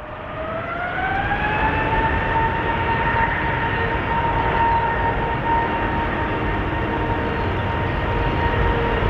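Jet airliner's engines running up to takeoff power: a whine climbs in pitch over the first two seconds, then holds steady over a loud rush of engine noise.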